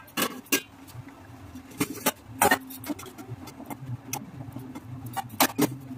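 Metal cooking utensil knocking and clinking against steel pans on a gas stove, in short irregular clatters, over a steady low hum.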